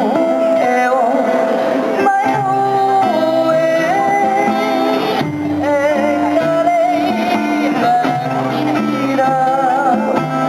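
A song with a singing voice over plucked guitar accompaniment.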